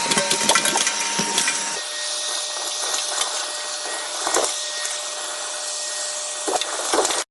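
A 2000 W twin-motor wet and dry vacuum cleaner running with a steady rushing noise. Rapid rattling clicks come through in the first couple of seconds. About two seconds in the tone changes and the run steadies, with a few single knocks near the middle and end.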